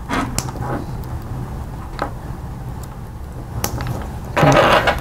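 Small plastic wire connectors clicking and cables rustling as sensor leads are handled and plugged together, a few scattered sharp clicks over a steady low hum, with a louder rustle near the end.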